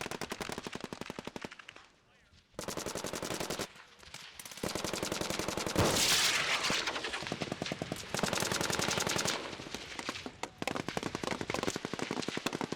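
Machine guns firing in long, rapid bursts, with brief pauses between the bursts.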